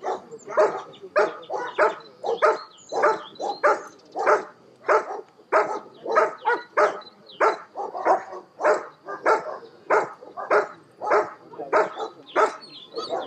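German shepherd barking steadily in a long, even run of short, sharp barks, a little under two a second.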